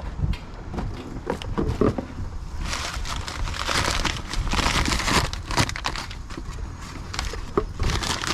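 Crinkling and rustling of something being handled, with scattered clicks and knocks of parts. A denser stretch of rustling runs from about three to five seconds in.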